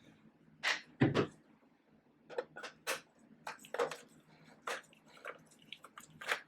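Star-head screwdriver working screws out of a plastic sweeper housing: a run of irregular sharp clicks and ticks, with a heavier knock about a second in.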